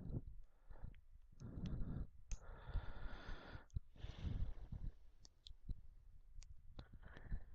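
Scattered keyboard key clicks with soft breathing close to the microphone.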